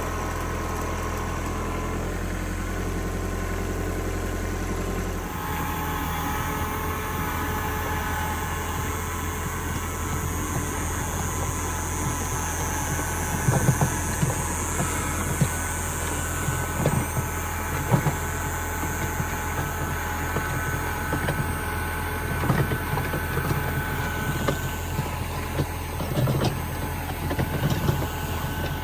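A motor vehicle's engine running steadily. The hum changes about five seconds in, and from about halfway through there are scattered knocks and rattles.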